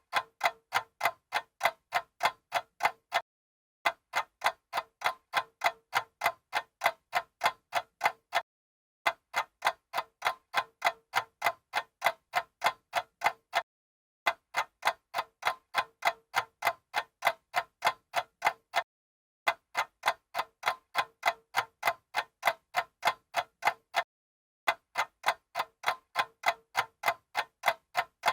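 Old mechanical stopwatch ticking rapidly and evenly, in runs of about four and a half seconds broken by short silent pauses of about half a second.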